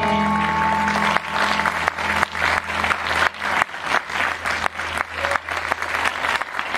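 Audience applauding with dense, steady clapping. The last sustained note of the amplified plucked string instrument dies away in the first second.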